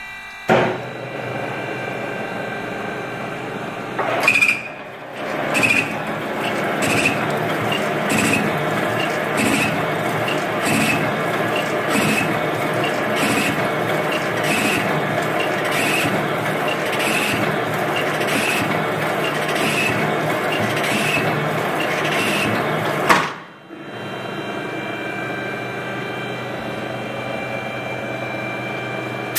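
Automatic thread-tapping machine running, with a short click repeating at an even pace about every second and a half as it cycles. Near the end the clicking stops and a softer steady running noise carries on.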